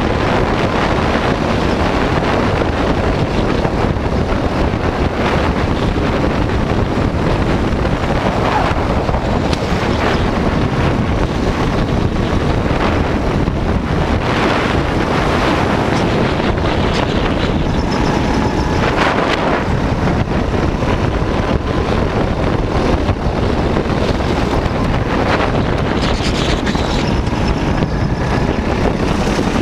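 Go-kart engine running at speed under heavy wind buffeting on an onboard camera's microphone, with a few brief rising sweeps as the kart accelerates.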